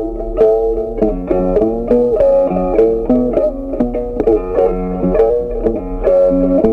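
Background music: a plucked-string instrument playing a quick, bright melody, several notes a second.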